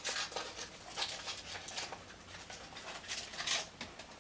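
Crinkling and rustling of a chocolate egg's wrapper as it is handled, in short irregular bursts.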